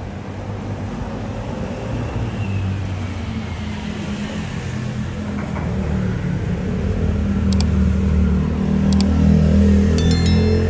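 Street traffic noise with a low, steady music bed swelling up and growing louder. Near the end, a few sharp clicks and a short chime of ringing tones.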